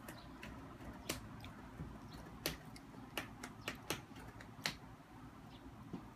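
A child's plastic fork and spoon clicking and tapping against each other and a plastic bowl: about a dozen light, irregular clicks.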